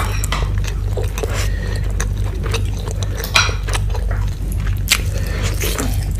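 Close-miked mukbang eating sounds: chewing and the wet handling of rice and gravy-covered chicken, with short clicks and taps of a spoon against a bowl, over a steady low hum.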